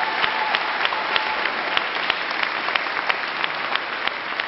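Crowd applauding, a dense patter of many hands clapping that thins a little near the end.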